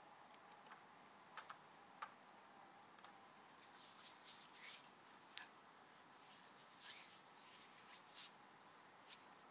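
Faint, scattered keystrokes and clicks on a computer keyboard, with short flurries about four seconds in and again about seven seconds in.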